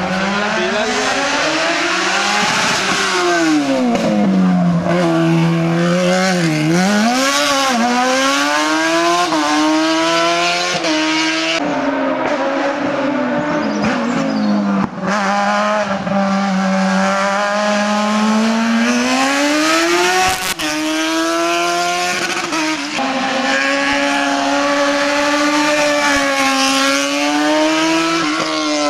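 Race car engine working hard through a slalom course, its pitch climbing and dropping over and over as it accelerates, shifts and lifts between the gates.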